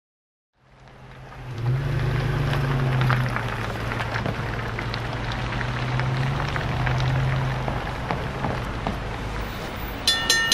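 Diesel locomotive engines droning steadily under a hiss, rising from silence in the first second or two. Near the end a railroad grade-crossing bell starts ringing.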